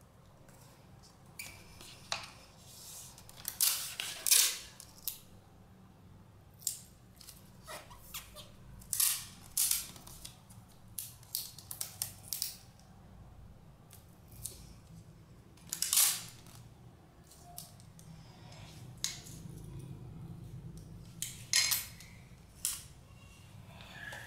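Clear adhesive tape being worked along the edges of a paper book dust jacket: irregular short rips and crackles as strips are pulled off the roll and pressed down, with the paper jacket rustling under the hands.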